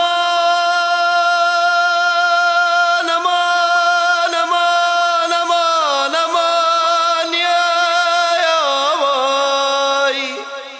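Music: a solo voice singing long held notes that slide between pitches, the sound dipping briefly near the end.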